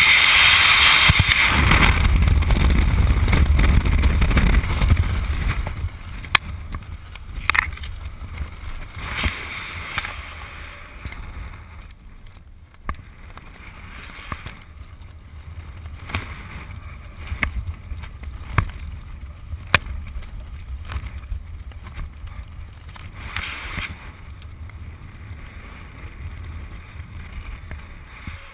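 Strong wind rushing over a helmet camera's microphone in skydiving freefall, dropping sharply about five seconds in as the parachute opens. Under the canopy a lighter wind noise follows, broken by scattered sharp flaps and clicks.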